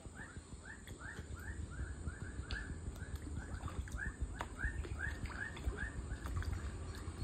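A bird chirping in a rapid, regular series of short chirps, about three a second, over a low rumble, with a few faint clicks.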